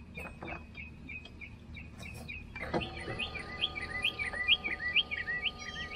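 A songbird chirping over and over, about two to three calls a second. About two and a half seconds in, the electric motor of a Bruno Curb Side scooter lift starts a steady hum as the lift's boom swings out of the van.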